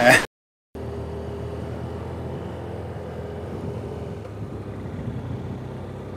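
BMW F800GS motorcycle engine running steadily at cruising speed, a low even hum with a faint higher tone, starting just under a second in after a brief dead-silent gap.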